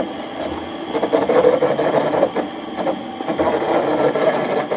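Small electric concrete mixer running, its drum turning steadily with a mechanical whir and scattered knocks while wet sand mortar churns inside and a bucket of cement is tipped into it.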